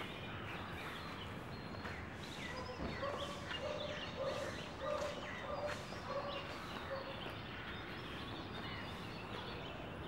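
Birds calling over a steady background hum: many short, high chirps, and from about three seconds in, a lower call repeated every half second or so for several seconds.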